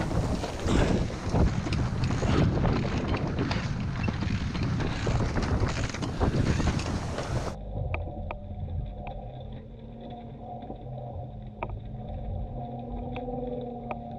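Strong wind buffeting the microphone aboard a sailboat, with knocks and rattles of the boat's gear. About halfway through, it cuts abruptly to a much quieter steady hum with a few faint clicks.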